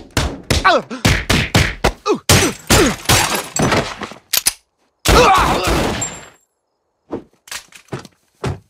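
Cartoon brawl sound effects of a cat attack: a quick flurry of hits and thuds mixed with short cries, and glass cracking as a windshield breaks. A longer cry comes about five seconds in, then a few scattered thuds near the end.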